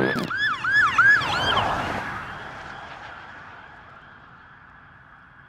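Emergency-vehicle siren in a fast yelp, quick rising-and-falling whoops about three a second, loud at first and fading away over the next few seconds.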